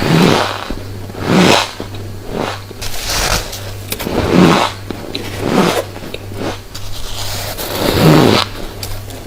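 Close-up chewing of a mouthful of refrozen freezer frost: repeated crunches, roughly one a second.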